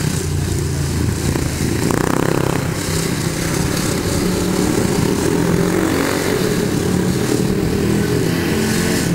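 Speedway bike's single-cylinder engine running as the bike rides round the shale track, its note rising and falling a little with the revs.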